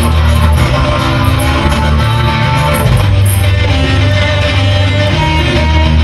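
Loud recorded music led by guitar, with a steady heavy bass.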